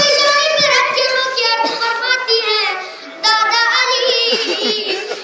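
A boy sings a noha, a Shia mourning lament, into a microphone, holding long wavering notes. There is a brief break for breath about three seconds in before he carries on.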